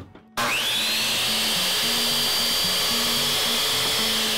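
Electric miter saw switched on about a third of a second in, its motor whine rising quickly to a steady high pitch as the blade makes a miter cut through a length of window casing.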